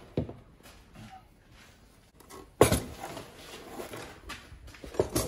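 A plastic box of metal spanners and sockets set down on a workbench about two and a half seconds in: a loud clatter that rattles on for a moment. A few lighter knocks of handling come just before and near the end.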